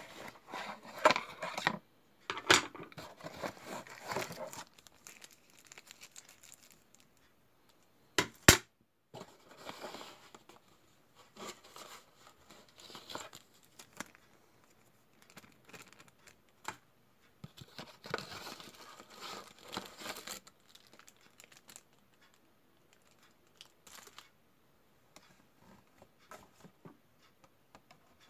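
Plastic wrapping crinkling and rustling in irregular bursts as a boxed 1:200 model airliner and its bagged parts are unpacked by hand, with the cardboard box handled too. One sharp click about a third of the way through is the loudest sound; the rustling thins out near the end.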